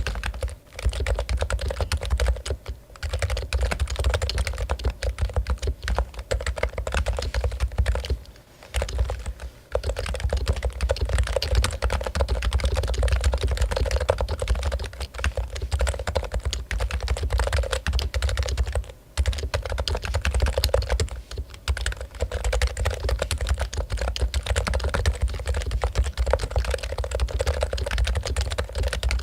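Fast continuous typing on a Topre Realforce keyboard, its electro-capacitive rubber-dome keys giving dense soft clacks, with a few brief pauses.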